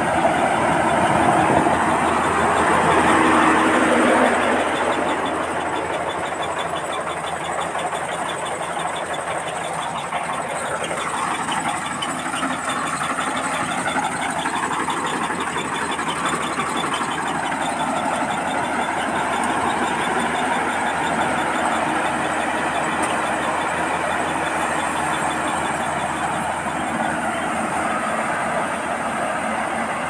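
Crawler-tracked rice combine harvester at work, its engine and threshing machinery running in a steady loud din, somewhat louder for the first few seconds.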